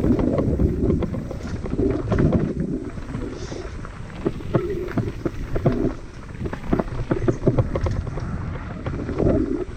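Mountain bike rattling and knocking over a rough dirt trail, with many irregular jolts over a low rumble and wind on the microphone.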